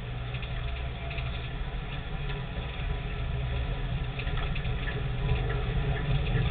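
Nissan Terrano II 4x4 wading through floodwater, heard from inside the cabin: a steady low engine rumble under water splashing and pattering against the body and wheel arches.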